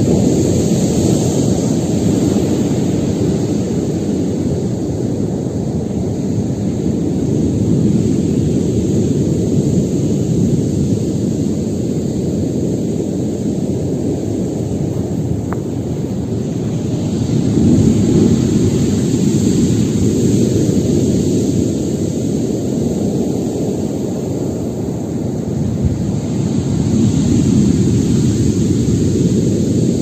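Storm surf: a continuous rushing noise of heavy waves breaking. It swells louder about every eight to ten seconds as each big wave comes in.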